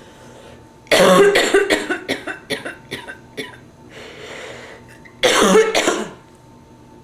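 Woman coughing with bronchitis: a fit of about eight coughs in quick succession, fading as it goes, a breath in, then two more coughs near the end.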